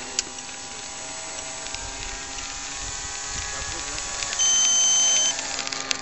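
Radio-controlled model airplane's motor droning steadily in flight. About four seconds in, a single loud electronic beep lasts about a second.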